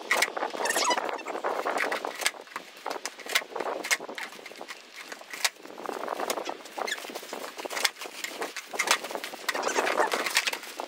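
Skateboard on gravel, its wheels crunching and scraping over the stones, with irregular clicks and clacks of the board.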